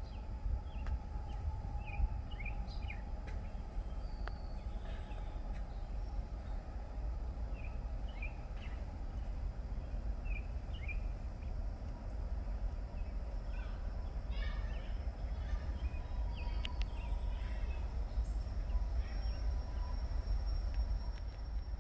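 Birds chirping in scattered short notes over a steady low rumble, with a faint steady high tone.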